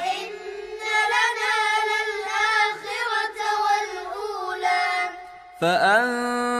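A child's high voice reciting a Quran verse in melodic, drawn-out chant, repeating the verse just recited. About five and a half seconds in, a lower adult voice begins chanting the next verse.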